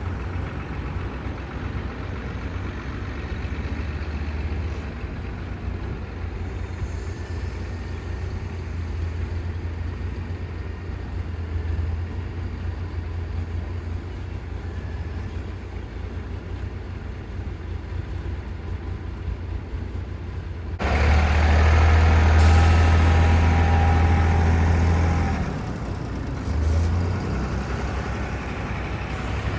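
A heavy engine idling with a steady low rumble; about two-thirds of the way in it runs up louder for about four seconds, then drops back to idle, with a brief rise again shortly after.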